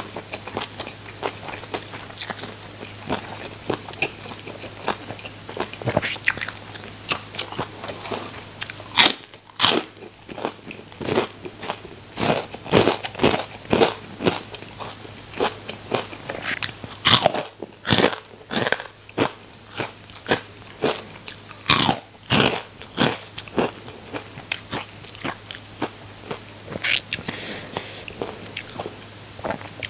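A person biting and chewing crunchy deep-fried food close to the microphone, loud crisp crunches coming in irregular clusters between quieter chewing.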